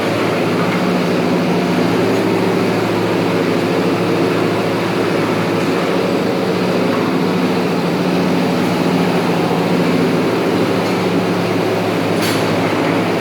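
Steady loud machinery drone with a constant low hum, unchanging throughout, and a single sharp click near the end.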